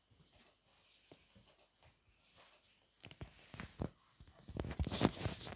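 Dog scuffling with a stuffed toy on carpet: nearly silent at first, then scattered thumps and rustling from about three seconds in, growing busier and louder near the end.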